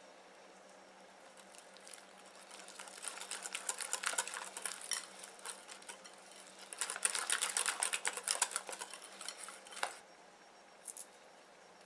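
Wire balloon whisk beating beaten egg into cream cheese batter in a glass bowl: fast, rapid ticking of the wires against the glass in two spells, starting about two seconds in, pausing briefly, and stopping about ten seconds in.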